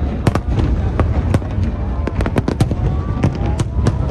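Fireworks display: an irregular, rapid string of sharp bangs, several a second, over a continuous low rumble.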